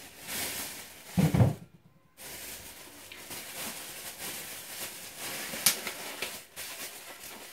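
Thin plastic bags rustling and crinkling as a used ostomy pouch is handled and put into a disposal bag, with a loud thump about a second in and a sharp click near the end.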